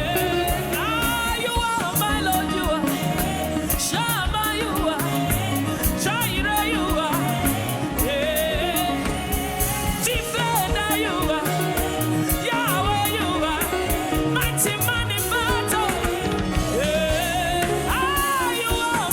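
Live gospel worship music: a singer's voice wavers and glides over a band playing a steady beat with heavy bass.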